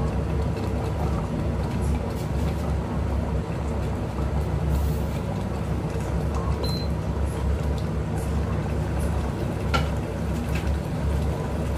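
Steady low hum of a running kitchen appliance, with a few faint clicks and one light knock near the end.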